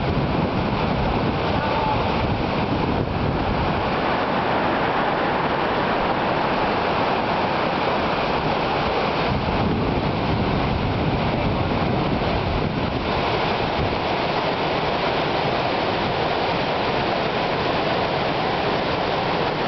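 River rapids rushing over rocks: a loud, steady wash of white water. In the first few seconds, wind buffets the microphone.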